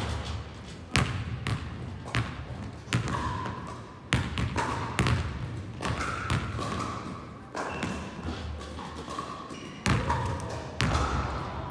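Basketballs bouncing and being dribbled on a sports-hall court, a string of sharp, irregularly spaced thuds, each echoing in the large hall.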